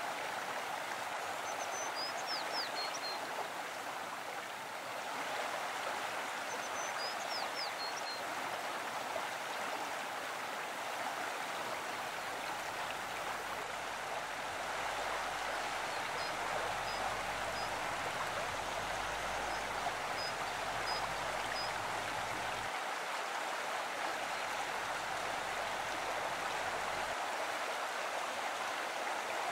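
Shallow forest stream running steadily over rocks. Short, high bird chirps come twice in the first eight seconds, with a run of fainter chirps midway.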